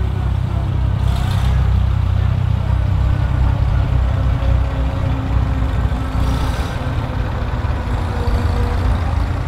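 Vintage David Brown Cropmaster tractor's four-cylinder engine running at a low, steady speed as the tractor drives along.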